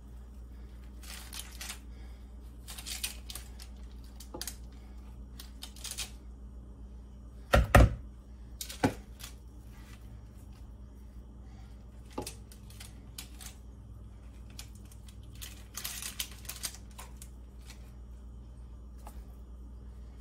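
Metal spoon scraping baked butternut squash flesh out of its skin on a parchment-lined sheet pan, with scattered soft scrapes and clicks and a few sharp knocks a little before halfway.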